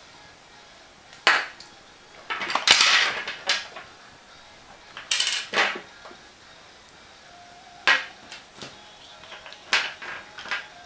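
Clatter and knocks of small hard objects being handled, in about six separate short bursts; the longest, a rattling clatter, comes a little over two seconds in.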